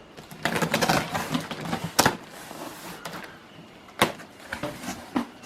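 A mailed parcel being opened: about a second and a half of crackling, rustling and tearing of packaging, then sharp snaps about two and four seconds in, with a few lighter clicks near the end.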